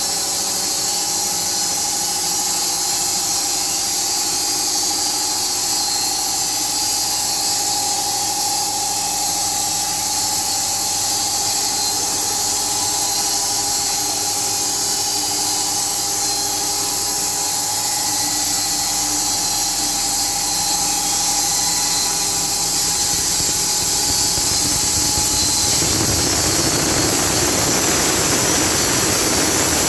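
Sawmill running with a steady high whine over a strong hiss. About 26 s in, the whine stops and a rougher, slightly louder machine noise takes over.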